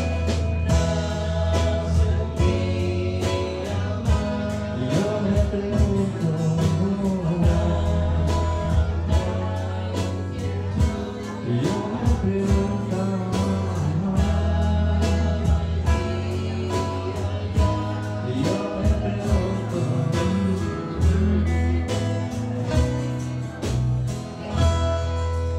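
A live band playing a song with acoustic guitars, electric bass and a drum kit keeping a steady beat, with voices singing.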